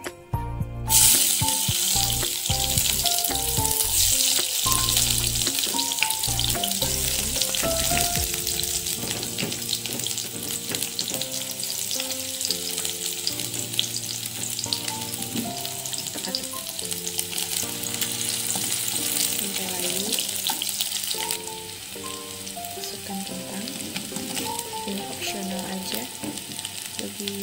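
Sliced shallots and garlic sizzling in hot cooking oil in a wok. The sizzle starts suddenly about a second in as they hit the oil and eases a little later on. Background music with a melody runs underneath.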